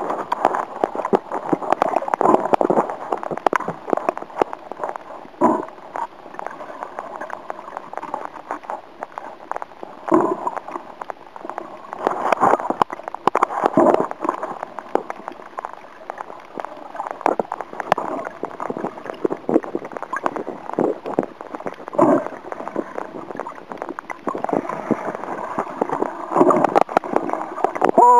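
Muffled underwater sound of moving water, sloshing and gurgling, with many irregular small knocks and swells as the net is worked free of the coral.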